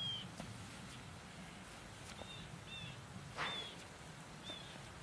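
Short, high-pitched animal calls, each a brief slightly falling note, repeated every half second to a second. Between them is a steady low outdoor rumble, and a brief rustle about three and a half seconds in.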